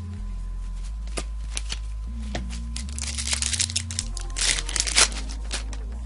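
Yu-Gi-Oh! trading cards and their foil booster pack wrapper being handled: scattered card clicks, then two spells of crinkling and rustling, the louder one about five seconds in.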